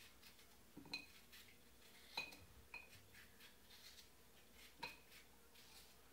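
Faint, scattered clinks of a metal kitchen utensil, about four or five light taps each with a brief high ring, while a cucumber is being peeled.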